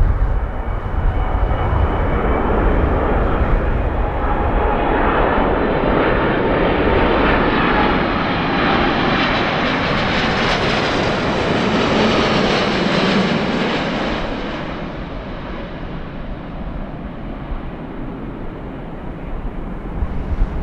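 Boeing 777-300 airliner on final approach passing low overhead: jet engine whine and rushing noise building to a peak about ten seconds in, with a falling whine as it goes past, then fading to a lower rumble as it flies on toward touchdown.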